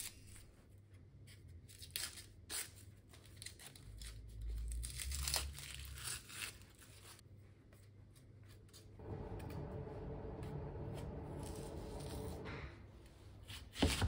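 Thin, papery onion skin crackling and tearing in short scattered bursts as it is peeled off a new onion with a small knife. A steady hum runs for a few seconds in the second half, and a sharp knock sounds right at the end.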